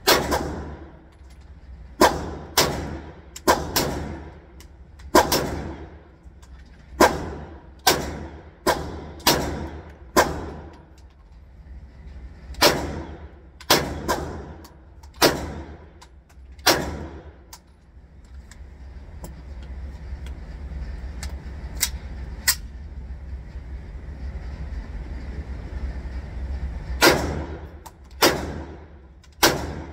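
Walther PDP Pro SD full-size 9mm pistol firing 115-grain CCI Blazer Brass: single shots at a steady, unhurried pace, about twenty in all, each ringing off the walls of an indoor range. The shots stop for about ten seconds in the middle, leaving a steady hiss, then resume near the end.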